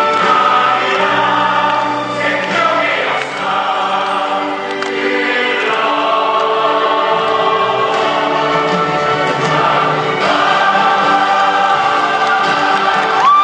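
Stage-musical cast singing together in chorus over musical accompaniment, with long held notes.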